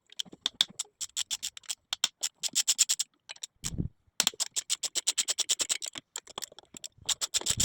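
Socket ratchet clicking rapidly, about eight to ten clicks a second, as bolts on an air-conditioning compressor are worked loose. There is a short pause with a dull knock partway through.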